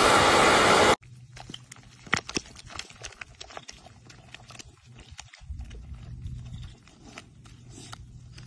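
A loud burst of noise cuts off about a second in. Then a dog wallows in wet mud, making many small wet squelches and crackling clicks, with a faint low hum underneath.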